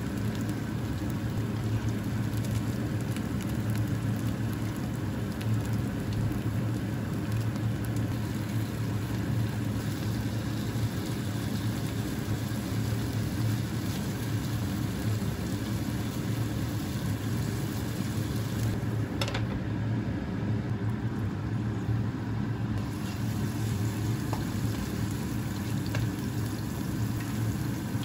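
Marinated chicken breast pieces sizzling steadily in oil in a nonstick frying pan, with a single light tap of the chopsticks on the pan about two-thirds of the way through.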